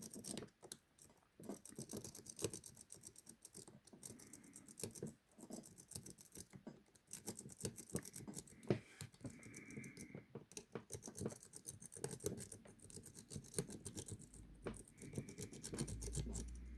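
Lock pick (an S-rake) being raked rapidly in and out of a Burg 40 mm padlock's keyway: faint, quick, irregular metallic scratching and clicking of the pick over the pins.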